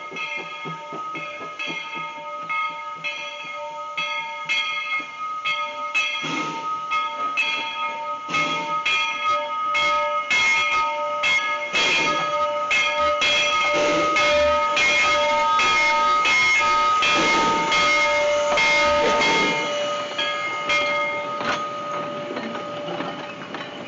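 Bell of Bridgton & Saco River #7, a two-foot-gauge steam locomotive, ringing with even, repeated strikes as it pulls its train past. The engine's exhaust and steam grow loud as it draws level about halfway through, and the bell fades near the end as the freight cars roll by on the rails.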